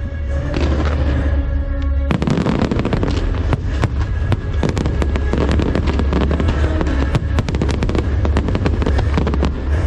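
Aerial fireworks bursting and crackling over loud show music with a heavy bass. The crackling thickens into a dense, continuous barrage about two seconds in.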